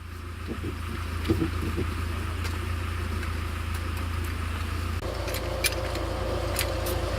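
A motor vehicle's engine running steadily, its note changing about five seconds in, with a few sharp clicks or rattles after that.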